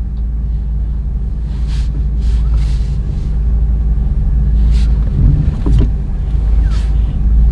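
Ford Super Duty service truck's engine running at low speed while the truck reverses slowly, a steady low rumble heard from inside the cab that grows slightly louder toward the end. A few faint clicks come about five to six seconds in.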